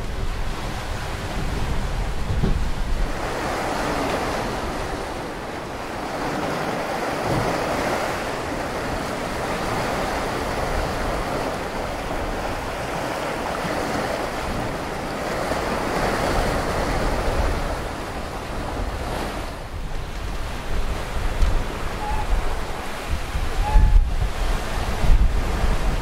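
Seawater rushing and churning past the hull of a sailing catamaran under way, the wash swelling and easing in long surges lasting several seconds each. Near the end, gusts of wind buffet the microphone with a low rumble.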